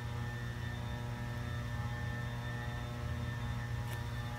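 A steady machine hum made of several even tones, strongest in the low range, unchanging throughout, with one faint tick a little before the end.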